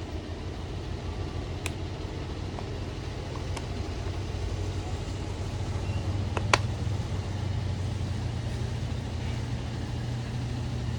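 A few sharp clicks of plastic parts as the new window switch for a 2009 Acura TL is fitted, the loudest about six and a half seconds in, over a steady low hum.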